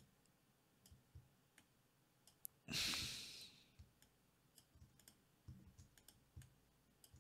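Faint computer mouse clicks and a few keyboard keystrokes, with one breathy exhale into the microphone about three seconds in.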